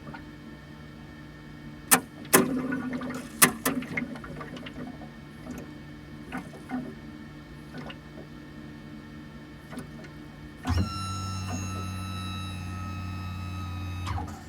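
Abnormal CJ3 brake noise: a series of sharp clicks and knocks over a steady low hum, then about eleven seconds in a loud buzzing tone with a slightly falling whine on top that lasts about three and a half seconds and cuts off abruptly.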